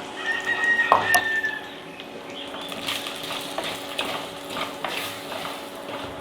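A spoon stirring and scraping in a clay pot, with small clinks and scrapes. A thin steady high tone sounds for about a second near the start.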